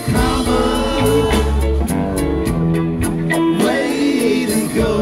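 Live rock band playing: electric guitars and drums, with voices singing at the microphones over them.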